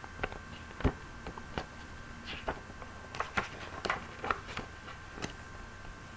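Scattered light clicks and taps, about a dozen at irregular intervals, over a faint steady hum.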